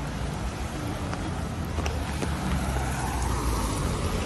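City street traffic: a steady low rumble and hiss, with one vehicle passing about three seconds in.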